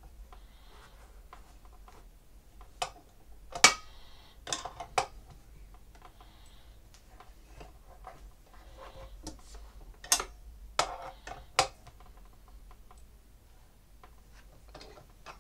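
Metal hand tool clicking and clinking against the pipe fittings on a pancake air compressor's regulator as a fitting is tightened. The sharp taps come scattered in two clusters, about three to five seconds in and ten to twelve seconds in, the loudest near three and a half seconds.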